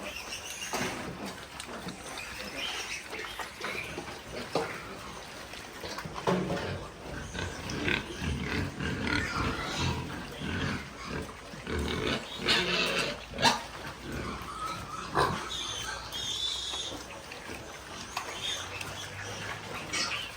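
Pigs vocalising, with a few short high-pitched cries and a couple of sharp knocks in the second half.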